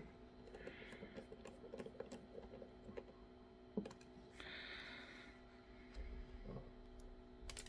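Faint small clicks and ticks of a small screwdriver driving tiny screws into the GoPro Karma gimbal's plastic housing, with light handling of the small parts. There is a single knock about four seconds in and a couple of sharper clicks near the end.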